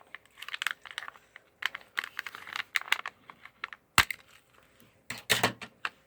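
Toy packaging being opened by hand: irregular crackling and clicking of plastic and cardboard, with one sharp snap about four seconds in and a louder burst of crackling shortly after.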